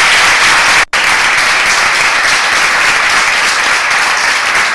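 Audience applauding loudly, with a brief break in the sound just under a second in.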